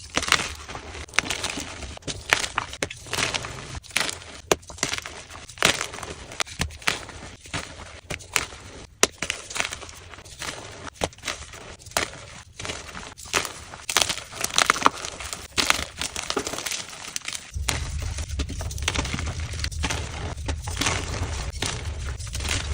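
Dyed gym chalk being crushed and crumbled, a rapid, irregular run of sharp crunches and snaps. A steady low hum comes in underneath about three quarters of the way through while the crunching goes on.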